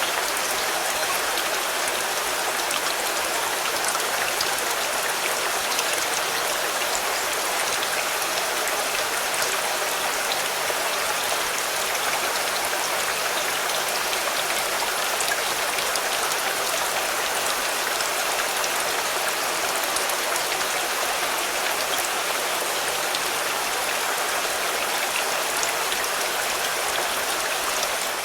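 Steady rain falling on a car, a dense even patter with fine drop ticks.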